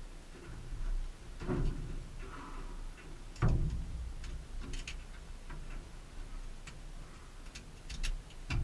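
Scattered light clicks and a few dull knocks from the pilot handling switches and controls in the cockpit of a light kitplane whose engine is not running; the loudest knock comes about three and a half seconds in.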